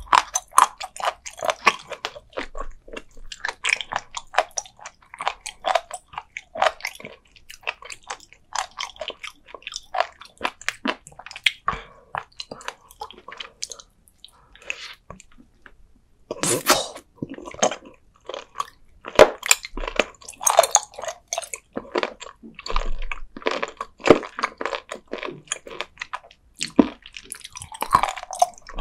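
Close-miked chewing of raw sea cucumber: a run of crisp, crunchy bites and chews from its firm, rubbery flesh. The chewing slackens briefly about halfway, then comes back louder.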